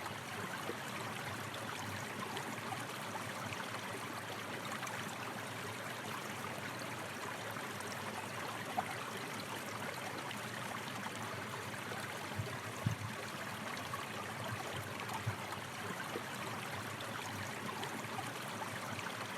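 Steady rushing and babbling of a flowing stream or river, with a few faint low thumps of water now and then.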